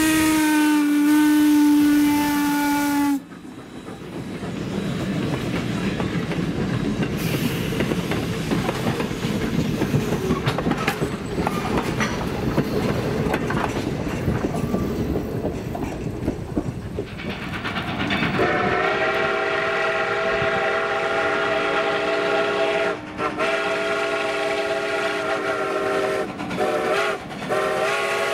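A Norfolk & Western steam locomotive's chime whistle blows a chord and cuts off about three seconds in. The steam train then runs by with a loud rumble and clatter. Past the halfway point a chime whistle sounds again in four blasts, long, long, short, long: the grade-crossing signal.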